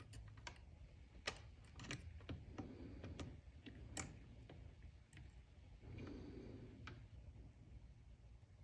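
Faint, irregular clicks and ticks of metal tweezers tapping and scraping against a flashlight's LED board and the soldering iron tip while prying at a stubborn soldered LED, over a low steady hum.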